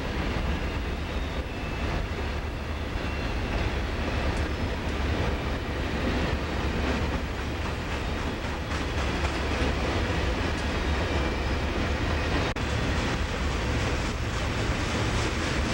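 Freight train passing behind two diesel locomotives: a steady low engine drone under a continuous rolling rumble of wheels on rail. Irregular faint clicks as the cars' wheels cross rail joints.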